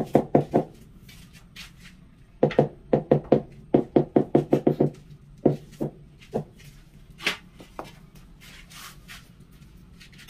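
Tiles being tapped down into a wet mortar bed to set them: quick runs of knocks, about six a second. There is a brief run at the start and a longer run of a couple of seconds, then a few single taps.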